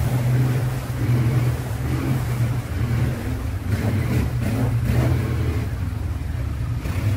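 ATV (quad bike) engine running with a steady low drone while riding through a shallow rocky stream bed, with a few brief bumps about four to five seconds in.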